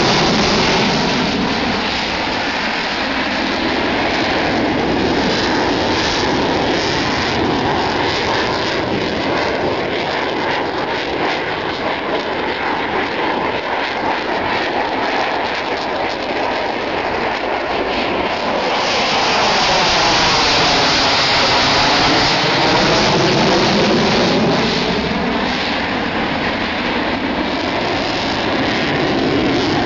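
Sukhoi Su-27 fighter's twin AL-31F afterburning turbofans running at display power as it manoeuvres overhead, a loud, continuous jet noise. About two-thirds of the way through the noise swells and takes on a sweeping, phasing sound as the jet passes closest.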